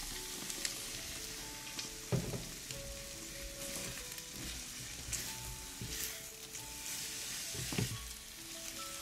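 Shredded cabbage and beaten egg sizzling in a frying pan while being stirred and turned with silicone spatulas. Two louder spatula strokes against the pan stand out, about two seconds in and near the end.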